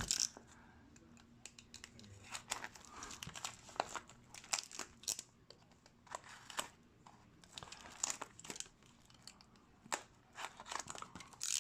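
Irregular crinkling and tearing of packaging as a hobby box of hockey cards is opened by hand.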